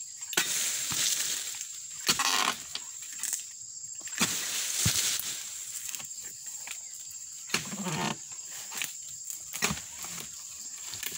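Long-poled harvesting blade cutting into oil palm frond bases: a string of sharp chopping knocks and fibrous crunches, with the palm fronds rustling and thrashing after several strokes.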